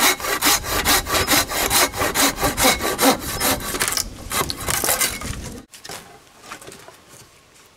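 Hand saw cutting through wood in quick, even back-and-forth strokes, about five a second. The strokes turn uneven and then cut off suddenly about two-thirds of the way through, leaving only faint small sounds.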